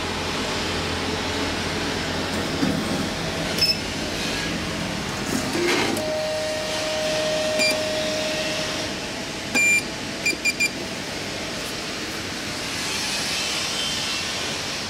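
Elevator hall call button beeping as it is pressed: one beep, then three quick beeps, over the steady hum of the station. A low steady tone sounds for a couple of seconds just before.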